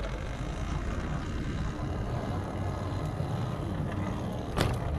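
Steady low rumble of a vehicle on the move, with a short sharp knock near the end.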